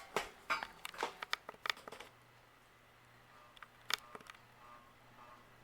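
A run of small clicks and knocks from handling the ceiling fan's controls, then from about two seconds in a faint, steady low hum as the fan motor is switched on, with one more click near four seconds.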